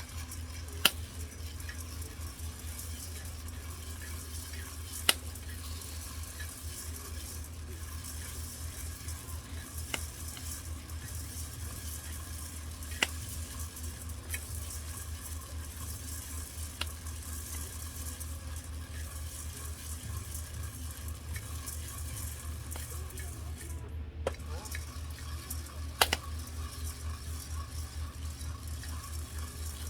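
Food frying with a steady sizzle over a low hum, with a few sharp clicks spread through it.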